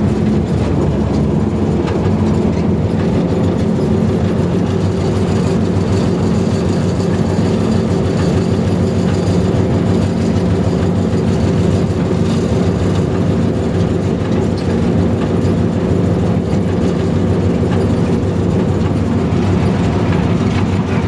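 Diesel-electric locomotive (HBU-20) running at speed, heard from the cab: the engine drones steadily under the noise of the wheels on the rails.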